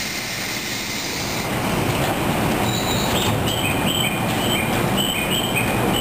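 The sliding passenger doors of a JR 113-series train closing against steady station and train noise. From about halfway through, a high two-note chirp repeats, alternating back and forth.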